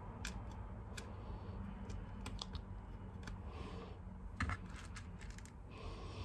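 Small plastic fuse beads being set by hand onto a plastic pegboard: light, irregular clicks, the loudest a quick double click about four and a half seconds in.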